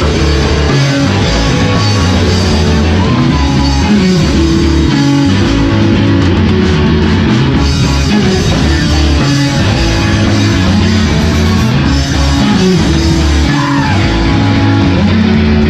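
Live rock band playing loud, with electric guitar and drums.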